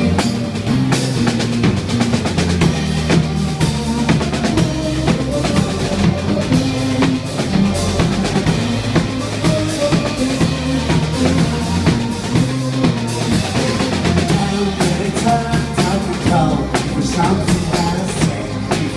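Rock band playing an instrumental stretch without vocals, the drum kit's kick and snare to the fore over a moving bass line.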